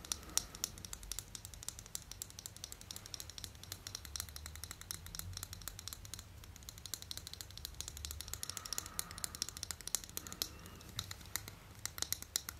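Close-miked crinkling and rapid small crisp clicks as an Apple 20 W charger is unwrapped from its wrapping and handled.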